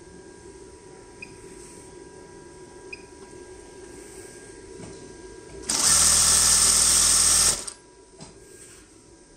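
Zoyer ZY2290-D4 computer-controlled high-speed zigzag sewing machine stitching through fabric at full speed in one run of about two seconds, starting about six seconds in and cutting off sharply. A faint steady hum lies underneath.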